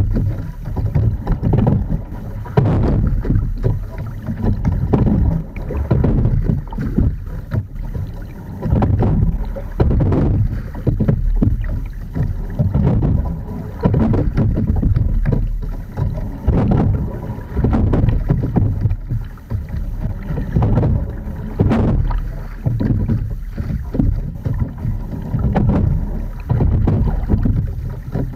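Edon TS515 sculling boat being rowed at a steady stroke. A knock and a rush of water come with each stroke, about every two to three seconds, over a low rumble of wind on the microphone.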